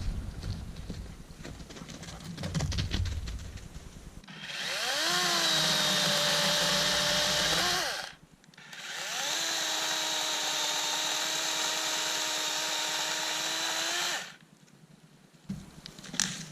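DeWalt 20V MAX 12-inch cordless electric chainsaw spinning up and running with a steady whine for about four seconds, winding down, then running again for about five and a half seconds before stopping. Before the first run there is rustling, and near the end a few knocks.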